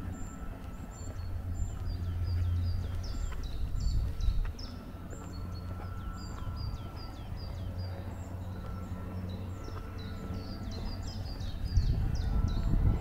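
Small birds chirping over and over in short, falling notes, over a steady low outdoor rumble that grows louder near the end.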